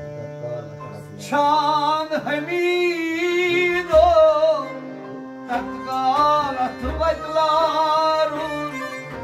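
A man sings a Kashmiri Sufi kalam over harmonium accompaniment. The harmonium holds steady notes alone for about the first second, then the voice sings two long, ornamented phrases with a short break between them.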